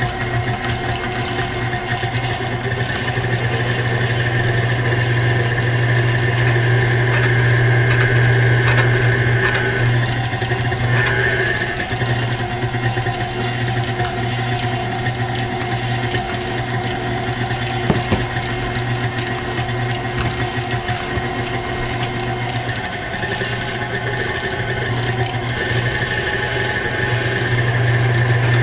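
KitchenAid Classic stand mixer running steadily with a drum shredder attachment, shredding chunks of chilled cheddar. There is a strong low hum with a higher whine that brightens and dims as the cheese is pushed through, and a single click about two-thirds of the way through.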